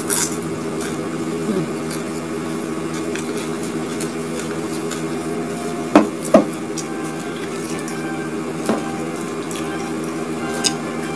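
Mouth chewing crispy fried grasshopper, with faint short crunches, over a steady background hum. Two sharp knocks about six seconds in, a fraction of a second apart, are the loudest sounds.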